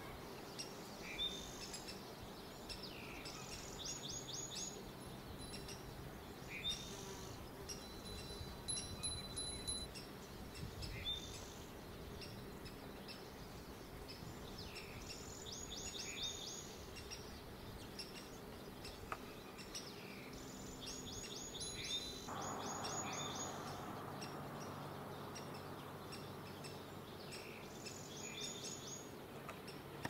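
Wild birds calling: short, quick series of high chirping notes that recur every few seconds, over steady outdoor background noise. About three-quarters of the way through, a low rushing noise comes in and holds.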